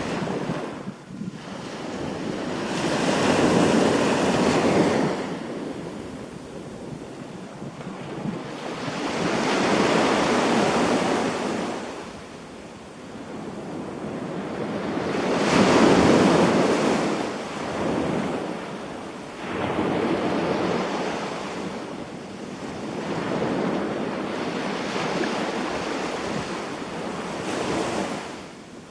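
Waves breaking and washing up the beach, each one swelling to a rush and fading away, roughly every five or six seconds.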